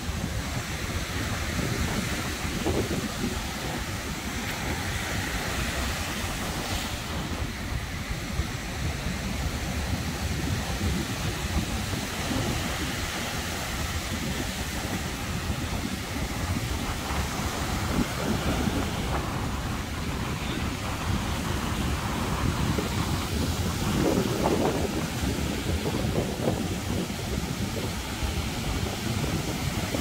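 Ocean surf breaking on a sandy beach, a continuous wash of waves that swells louder a few times as breakers come in, with wind buffeting the microphone.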